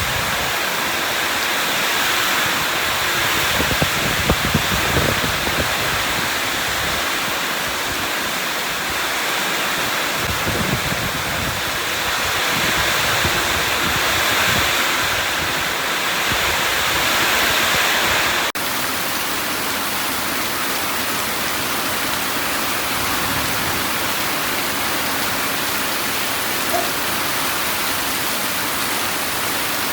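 Steady heavy rainfall as a dense, even hiss, with a few low rumbles in the first half. About two-thirds of the way through the sound changes abruptly to a flatter, more even hiss.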